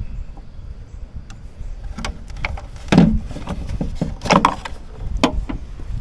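Scattered knocks and clunks of hands and tools working on a Jeep, the loudest about three seconds in and again about four and a half seconds in, over a steady low rumble.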